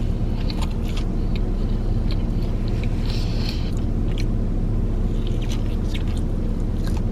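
Steady low hum inside a car with the vehicle running, under a few soft clicks and chewing sounds of someone eating, with a brief rustle about three seconds in.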